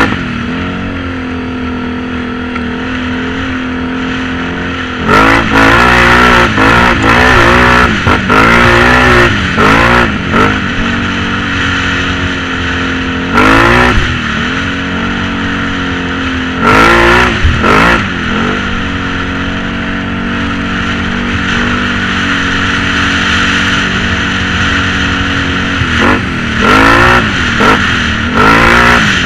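ATV engine running at a steady cruise and revved up and down again and again as it is ridden: a quick run of revs between about five and ten seconds in, single revs a few seconds apart after that, and more revs near the end.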